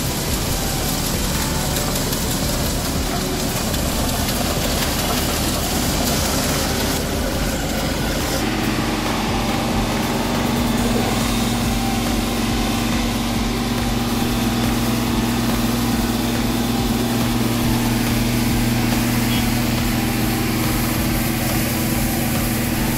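New Holland combine harvester running steadily under load while harvesting rice. About a third of the way in, the sound turns to a steadier, even hum with a clear low tone, as the unloading auger pours threshed paddy grain onto a tarp.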